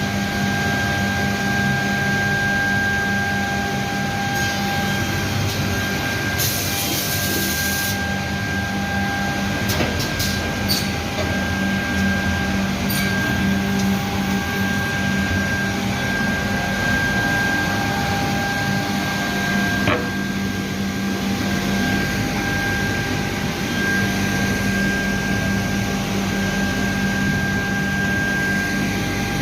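PVC edge banding machine running, a steady mechanical hum with a constant whine. A short hiss about six seconds in, and a few sharp clicks about ten and twenty seconds in.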